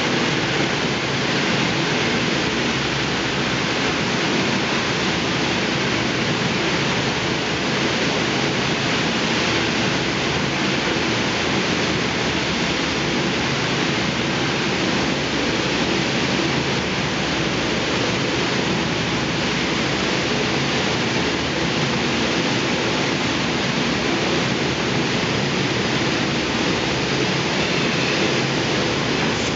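Thermal lance (UltraOxibar burning bar) burning with oxygen as it cuts open a copper furnace's tap hole: a loud, steady rushing hiss that never breaks.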